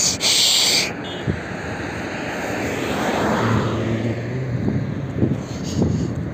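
Outdoor street traffic noise: a motor vehicle passes, its sound swelling and fading around the middle with a low engine hum, and a loud burst of hiss in the first second.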